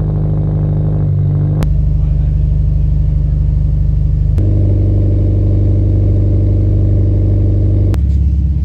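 A car engine running steadily. Its tone changes abruptly three times, each change marked by a sharp click.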